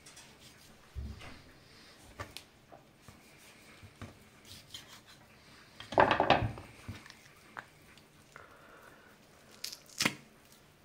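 A knife cutting a raw chicken leg on a wooden cutting board, and hands handling the meat: soft slicing, rubbing and light taps, with a louder rough burst about six seconds in and a sharp click near the end.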